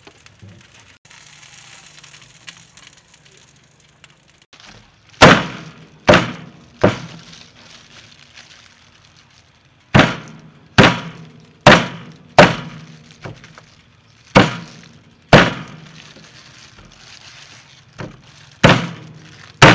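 A meat cleaver chopping a roasted chicken into pieces on a thick wooden chopping block: about a dozen sharp chops in uneven groups, starting about five seconds in.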